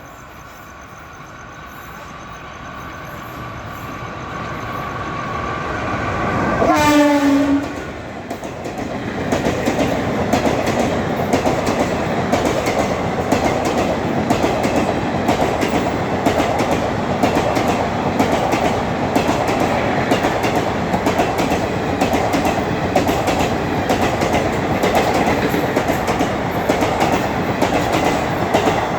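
An Indian Railways locomotive horn sounds as the train approaches, growing louder, and its pitch drops sharply as the locomotive passes about seven seconds in. Then the train's ICF coaches run past with a steady rumble and rhythmic clickety-clack of wheels over rail joints.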